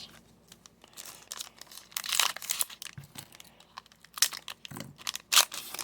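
Plastic trading card pack wrapper being torn open and crinkled, in irregular bursts of crackling, with louder spells about two seconds in and again near the end.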